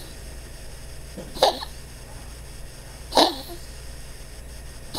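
Small dog coughing and retching in short single hacks, one about every two seconds, the last right at the end. The vet puts the cough down to her heart combined with a collapsing trachea; an x-ray showed an enlarged heart pressing on the trachea.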